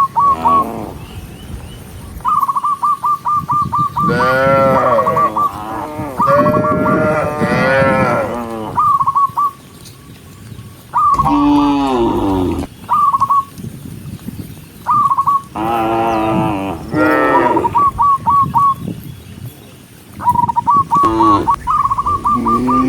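Cattle mooing, several long calls that bend up and down in pitch. Between the moos, runs of short high-pitched notes repeat quickly, several times over.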